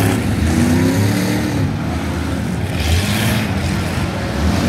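Demolition derby cars' engines running and revving together, a steady low rumble with pitch rising and falling in the first second or so.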